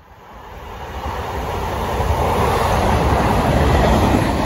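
An HST power car leading a train through a station at speed: the engine's low throb and the wheels' rumble on the rails grow steadily louder as it approaches and passes, and are loudest near the end as the trailing vehicle goes by.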